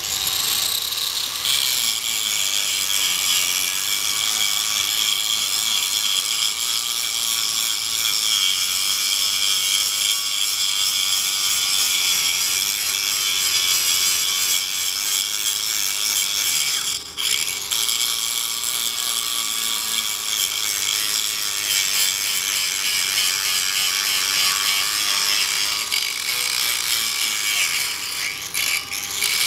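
Electric disc sander (angle grinder) running with an abrasive disc pressed onto rusty steel plate, stripping rust and scale down to bare metal: a steady, high-pitched grinding hiss that dips briefly about 17 seconds in and again near the end.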